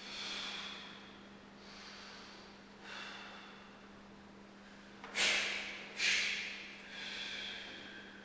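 A karateka's forceful breathing during a kata: about six hissing breaths, with three sharp ones about a second apart after about five seconds. A faint steady hum underneath.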